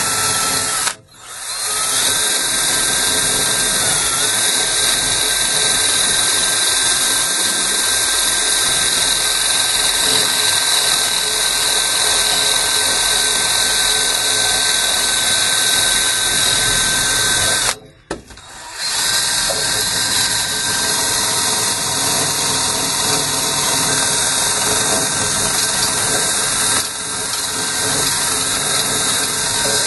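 Power drill spinning a wire brush against old, pitted copper pipe, scouring it clean for soldering. It runs steadily with a constant whine, stopping briefly twice, about a second in and just past halfway, then starting again.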